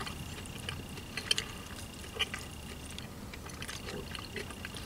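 Faint scattered clicks and soft wet sounds of a fork picking through the egg and hash-brown filling of a burrito, over the low hum of a quiet car interior.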